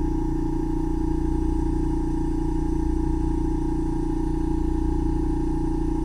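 Ear microsuction: the suction cannula drawing air in the ear canal, a loud, steady whistling hum at a few fixed pitches.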